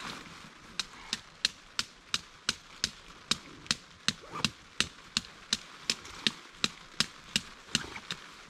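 Steady hammering, about three sharp strikes a second for some seven seconds, as a stake is driven in to pitch a tarp shelter.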